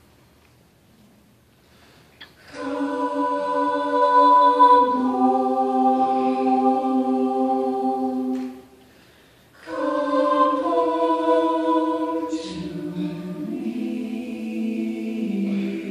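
Choir singing long held chords, coming in loudly a couple of seconds in, breaking off for about a second, then resuming with harmonies that shift from chord to chord.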